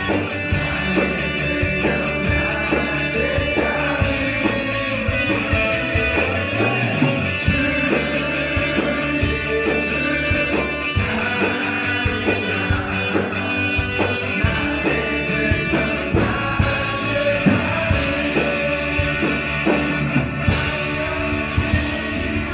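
Live worship band playing a rock-style song: a Gibson electric guitar over a steady drum beat, with singing.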